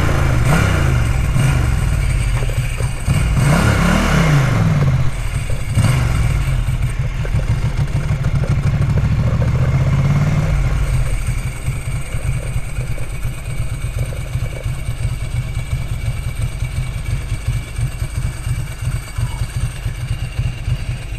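Ducati 900 SS's air-cooled V-twin engine running. For the first ten seconds or so its pitch rises and falls with the throttle, then it drops to a quieter, steady low beat for the rest.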